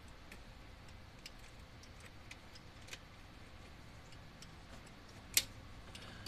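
Light, irregular metallic clicks and ticks as an engine's exposed rocker arms are pushed and rocked by hand, with one sharper click about five seconds in, over a low steady hum. The rockers feel a little squeaky but nothing is grinding.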